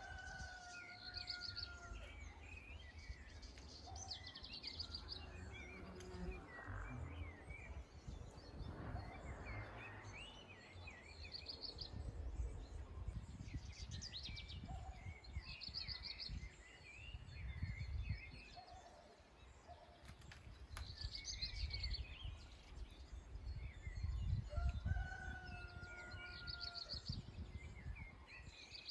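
Outdoor village birdsong: small birds chirp repeatedly while a rooster crows twice, once near the start and again near the end. Uneven low rumbling noise runs underneath.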